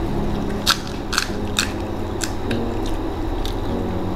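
Crisp, hollow fried puri (phuchka) shells cracking as they are punched open with fingers and bitten into. There are about six short, sharp crackles spread over four seconds, over a steady low hum.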